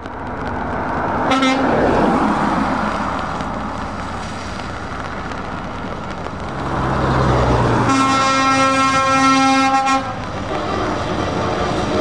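Heavy trucks driving past, engines running and tyres hissing on a wet road, with a short horn toot about a second in and a long, loud, multi-note air horn blast from a passing truck lasting about two seconds, starting around eight seconds in.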